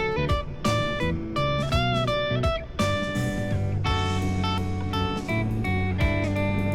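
Background music led by guitar, plucked notes with a string bend and a steady bass line.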